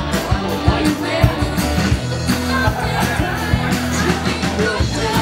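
Live rock band playing a song: guitars and a drum kit with a steady beat of drum strikes over bass notes.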